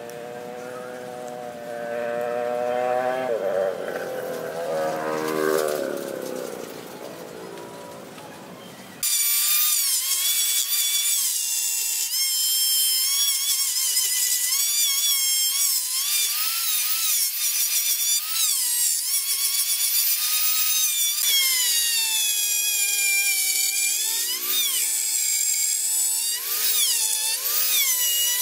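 High-speed rotary tool with a carving burr cutting into a wood block: a high whine whose pitch dips each time the burr bites and recovers as it eases off, starting abruptly about nine seconds in. Before that, a lower, wavering hum.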